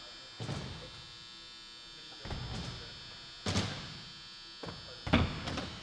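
BMX bike riding on wooden skatepark ramps: tyres rolling and a string of thuds as the wheels hit and land on the ramp surfaces, the loudest about three and a half seconds in. A steady hum runs underneath.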